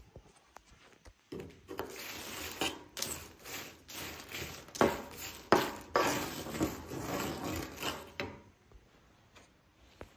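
Wooden spatula stirring and scraping dried chiles as they toast on a comal: a dry rustling and scraping with sharp crackly strokes. It starts about a second in and stops about two seconds before the end.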